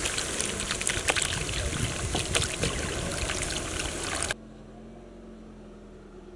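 Water poured from a bottle into a hot aluminium wok of oil and fried vegetables, splashing and sizzling with many crackles. The sound cuts off suddenly about four seconds in, leaving a faint low hum.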